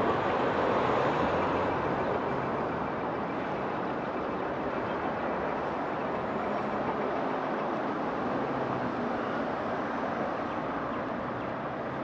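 Steady road traffic noise, louder for the first couple of seconds as a vehicle goes by.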